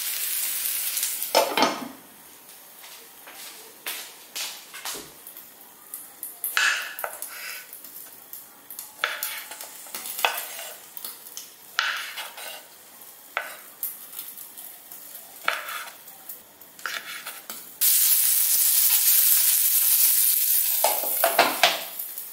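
Eggplant sizzling as it is stirred in a frying pan, then a knife cutting cherry tomatoes on a wooden cutting board, about one cut a second. Near the end there is a few seconds of loud, steady frying sizzle, then a few light clicks of pan and lid.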